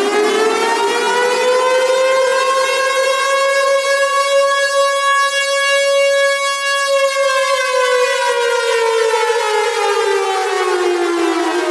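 Civil defense siren sounding one slow wail: its pitch climbs to a held peak around the middle, then slowly falls away.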